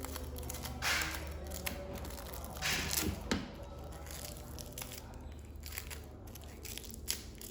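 Rustling handling noises: two short tearing or crinkling bursts about one and three seconds in, with scattered light clicks and taps between.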